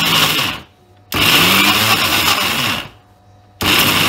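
Electric mixer grinder grinding a coarse coconut and green peppercorn chutney, pulsed in short bursts: it runs, stops, runs for nearly two seconds, stops again, and starts once more near the end.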